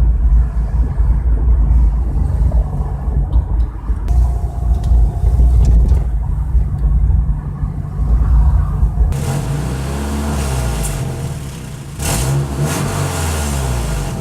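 Subaru Forester's flat-four engine running with a heavy low rumble, then revving up and down about two-thirds of the way through. The engine is one reported to be knocking.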